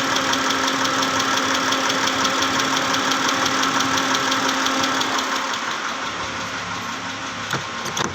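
Mitsubishi 6G74 V6 gasoline engine running with a rapid, even knocking from inside the engine, which the mechanic suspects is a stuck valve lifter. The sound gets somewhat quieter about five seconds in.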